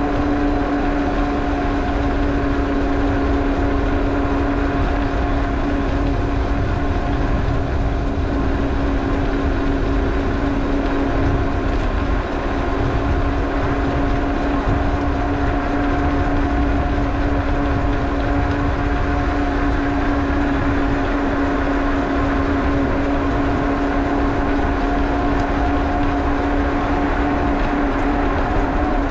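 Steady wind and road rumble on a bicycle-mounted action camera while riding, with a steady two-note hum over it.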